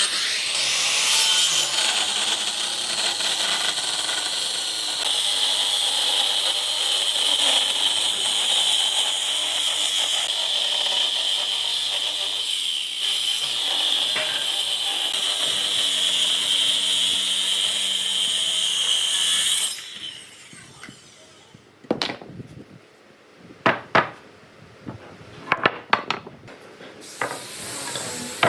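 A power tool running steadily against wood, with a high whine over a hissing cut. It cuts off abruptly about twenty seconds in, and several separate sharp knocks of wood being handled follow.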